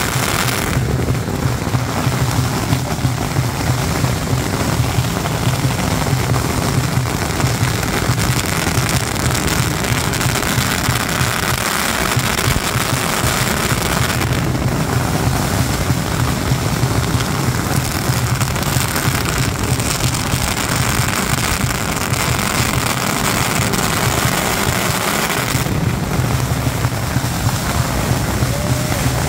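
Strings of firecrackers going off at ground level in a dense, continuous crackle that doesn't let up.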